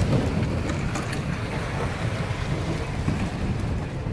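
Steady wind rumble on the microphone mixed with street traffic noise, with a few faint knocks.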